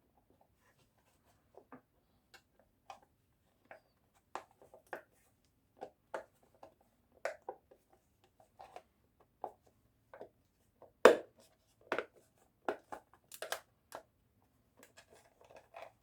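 Irregular small clicks and taps of tools and small parts being handled during a Bluetooth speaker repair, with a sharper knock about eleven seconds in.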